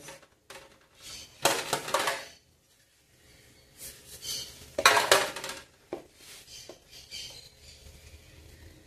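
Metal kitchen bowls clattering and scraping as they are moved on the countertop, with two louder rattling clanks about a second and a half and five seconds in. Softer rubbing of hands follows near the end.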